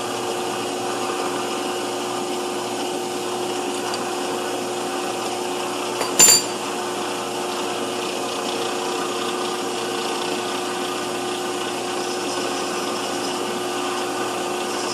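Small metal lathe running steadily, its motor and spindle giving a constant hum with a whine, while a chamfering tool is brought to the bronze bar stock; one sharp metallic clack about six seconds in.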